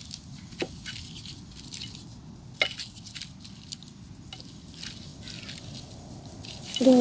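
Wooden spatula stirring crab pieces in a thick masala in a wide metal pan: soft wet squishing with scattered clicks and knocks as shells and spatula hit the pan.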